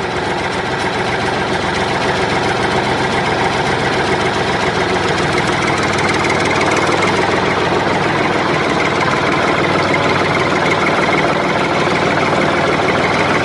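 An engine running steadily: a loud, even mechanical drone with a low hum underneath.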